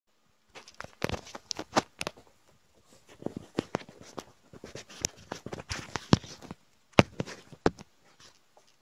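Handling noise as the recording device is set in place: irregular sharp clicks, knocks and rubbing, with the sharpest knocks just under two seconds in and again about seven seconds in.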